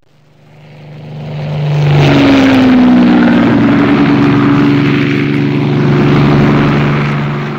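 Propeller aircraft engine running loud and steady, swelling up over the first two seconds and easing off near the end.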